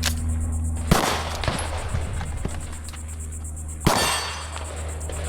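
Pistol shots during a timed drill: two shots about a second apart, then a pause of almost three seconds before a third, each followed by a ringing clang of steel targets.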